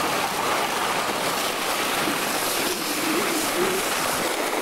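Steady rushing noise of wind buffeting a camcorder microphone, with a faint wavering voice in the middle.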